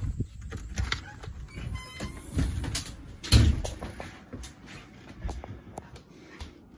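A house door being opened and pulled shut: a run of clicks and knocks, the loudest a heavy thump about three and a half seconds in.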